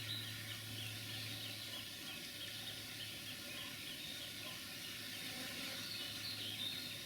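Faint birdsong: quick runs of short, high chirps repeating over and over, over a faint steady low hum.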